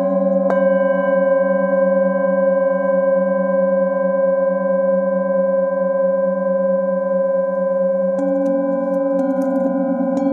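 Metal singing bowls ringing with long, steady overlapping tones. A bowl is struck with a padded mallet about half a second in and again about eight seconds in, each strike adding new tones over the lingering hum.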